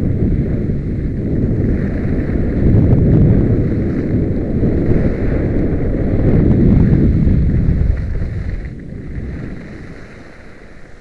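Wind rushing and buffeting over the microphone of a camera on a skier running downhill, with skis scraping over packed, tracked piste snow. It dies down about eight seconds in.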